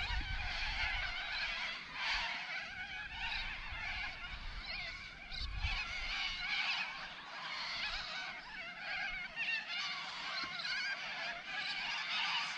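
Birds calling on and off, a busy chorus of harsh calls.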